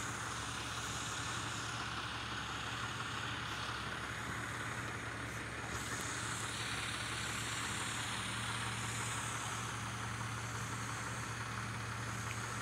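Steady low hum of idling vehicle engines, with an even hiss over it.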